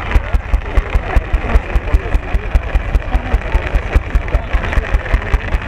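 Rapid, evenly spaced clicking with a low thud on each stroke, about five a second, over the murmur of a crowd's voices.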